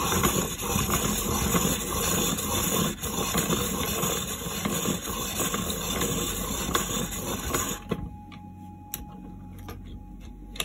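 Electric pencil sharpener running as it grinds a coloured pencil to a point, with a brief break about three seconds in. It stops suddenly about eight seconds in, leaving a few faint clicks.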